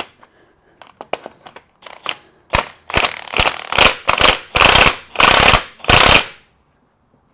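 A cordless impact wrench hammers in about eight short bursts on a coilover strut's top nut, undoing it. The last three bursts are longer, and the tool stops about six seconds in. A few faint clicks come before the bursts.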